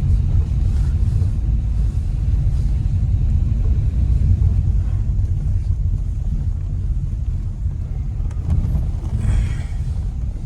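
Renault Duster 4x4 driving on a rough off-road track: a steady low rumble of engine and tyres.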